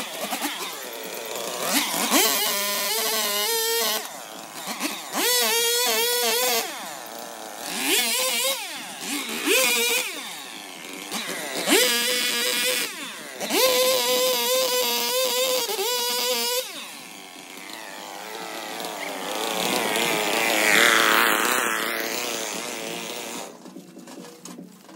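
Two-stroke Stihl chainsaw revving in repeated bursts, the pitch climbing at the start of each and then holding steady while it cuts into a small tree trunk, about six times over the first two-thirds; a broader rushing sound swells and fades near the end.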